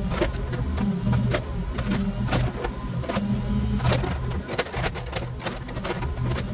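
John Deere 26G mini excavator's diesel engine running steadily under hydraulic load, with frequent sharp knocks and scrapes from the bucket working at a tree stump and its roots.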